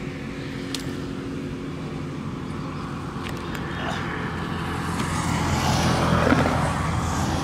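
A motor vehicle's engine hums steadily and grows louder over the last few seconds, as if it is approaching or passing on a nearby road.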